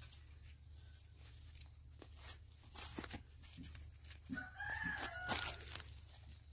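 A rooster crows once, a little over four seconds in, over the crackle and tearing of leafy greens being pulled up by hand.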